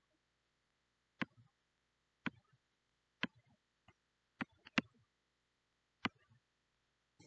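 Sharp single clicks, about one a second with a pair close together midway, each followed by a softer tick just after, from clicking at the computer while drawing lines in a sketch app.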